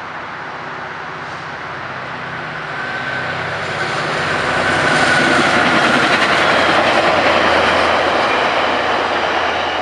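VIA Rail passenger train approaching and passing, the diesel locomotive and the wheels on the rails growing louder to a peak about five to eight seconds in, then starting to fade near the end.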